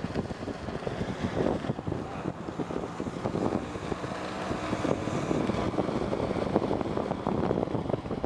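Motorcycle engine running while riding along a dirt path, with wind rumbling on the microphone.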